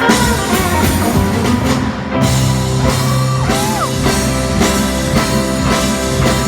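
Rock band playing an instrumental passage: guitar over a drum kit keeping a steady beat, with a couple of sliding guitar notes midway.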